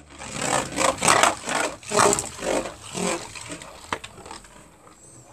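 A Beyblade spinning top whirring and scraping on a plastic stadium bowl just after launch, the sound swelling and fading about twice a second as it swings around. After about three seconds it settles and goes quieter, with a single sharp click near four seconds.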